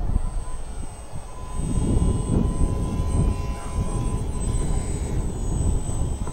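Electric motor and propeller of a depron profile RC parkjet in flight, a thin whine drifting up and down in pitch, under heavy wind rumble on the microphone.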